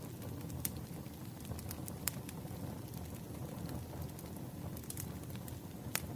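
Wood fire burning with a steady low rumble and scattered sharp crackles and pops, the loudest pops a little after half a second in, about two seconds in and near the end.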